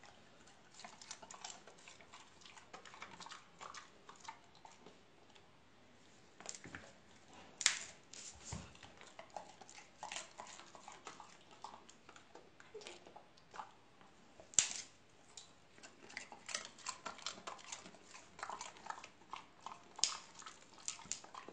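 Scattered soft clicks and taps as two golden retrievers move about on a hardwood floor, with a few louder, sharper clicks about eight, fifteen and twenty seconds in.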